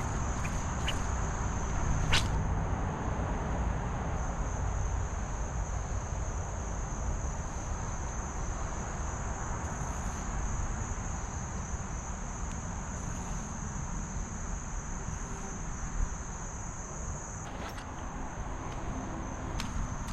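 Steady high-pitched insect chorus, over a low rumbling background, with one sharp click about two seconds in.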